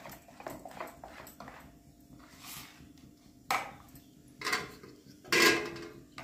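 Wire whisk stirring semolina idli batter in a bowl, quick soft strokes against the bowl, followed by a few louder clatters of utensils, the loudest just before the end.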